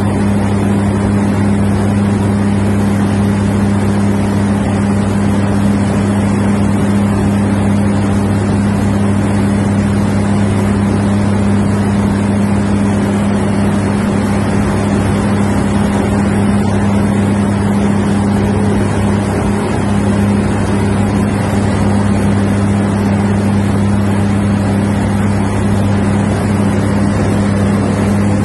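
An engine's loud, steady drone at one unchanging low pitch, with a rushing noise over it.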